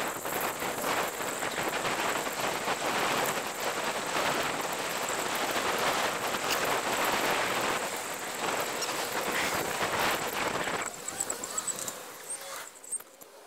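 Rush of wind and road noise from a camera on a moving bicycle, an uneven hiss that drops off sharply about eleven seconds in, leaving quieter street sounds with a few short knocks.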